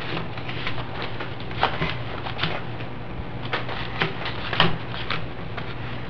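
Playing cards being gathered up and dealt out onto a table: a run of irregular light taps and slaps, with a few sharper ones, over a steady low hum.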